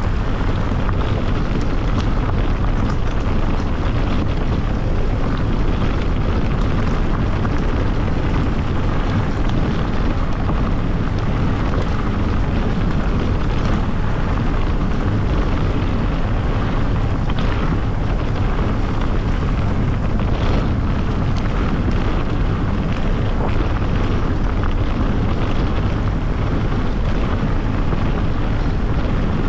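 Steady wind rumble and buffeting on an action camera's microphone while it moves at speed, with a few faint clicks.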